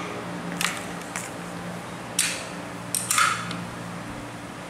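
Open-end wrench clinking and scraping on the nut of a pole saw's chain bar cover as the nut is tightened down, the bar and chain just tensioned: four or five short metallic clicks, the longest about three seconds in.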